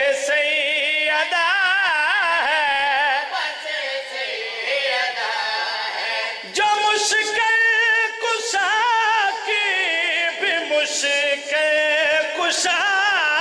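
A man's voice chanting a qaseeda (devotional verse) without accompaniment, in long wavering melismatic lines. He breaks off briefly about six and a half seconds in, then resumes.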